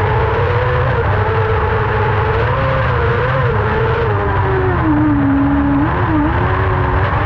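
Kart cross buggy's motorcycle engine running hard under racing throttle, heard onboard: its pitch rises and falls with the throttle, drops for about a second around five seconds in, then climbs again, over a steady low rumble.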